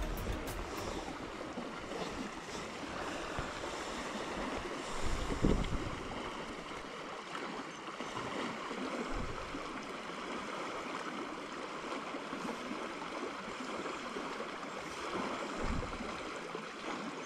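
Salmon river rushing steadily over rocks, with wind buffeting the microphone in brief low rumbles a couple of times.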